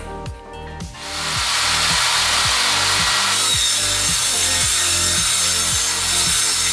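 Table saw cutting through the edge of an end-grain hardwood cutting board: a loud, steady sawing noise that starts about a second in. Background music with a steady beat continues underneath.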